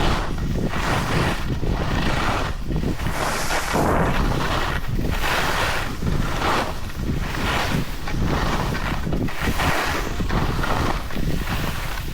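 Skis carving down a snowy slope, a hissing scrape of edges on snow that swells and fades about once a second with each turn, over heavy wind rumble on the microphone.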